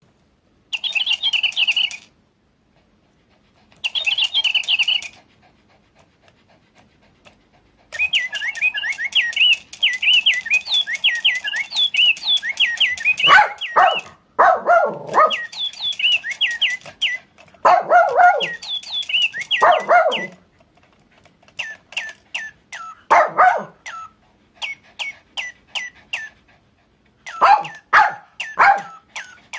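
A toy parakeet's electronic chirping in bursts of rapid high tweets, with a Papillon dog singing along to it from about halfway in: several short howling calls that slide down in pitch, trading off with runs of short chirps.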